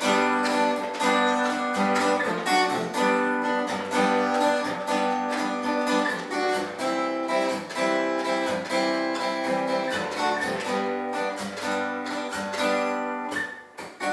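Acoustic guitar strumming chords in a steady rhythm, as the instrumental introduction to a song.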